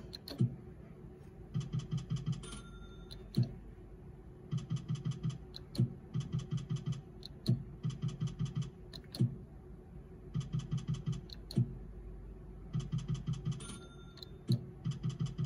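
Video slot machine's electronic reel sound effects: short bursts of rapid, even ticking, each about a second long, repeating about seven times as the reels spin and stop, with single sharp clicks in between.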